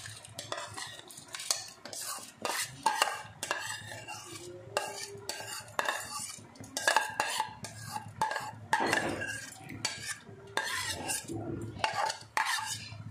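Metal spoon scraping and knocking against a ceramic bowl as soaked basmati rice is pushed out of it into a pan of hot water, in many irregular scrapes and clinks.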